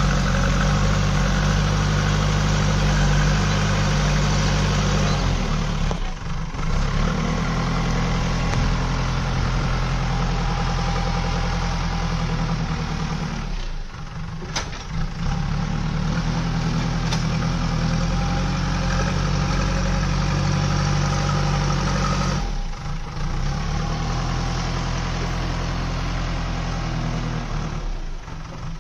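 JCB backhoe loader's diesel engine running as the machine works soil with its front bucket. The engine note dips briefly and picks up again about every eight seconds.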